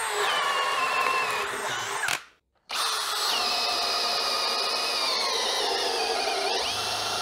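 AEG 18 V cordless drill boring into a thick wooden board with a long wood bit, its motor whining steadily. It runs for about two seconds, stops briefly, then runs again for a longer stretch, the pitch dropping a little under load before picking up again near the end.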